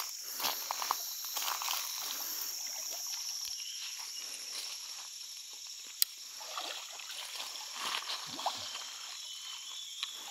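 Water sloshing and splashing, over a steady high chorus of crickets and other insects. A single sharp click comes about six seconds in.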